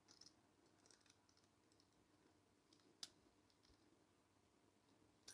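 Near silence with a few faint, sharp clicks of brass clock-movement parts being handled as a wheel's pivot is worked into its plate, the clearest about three seconds in and another at the end.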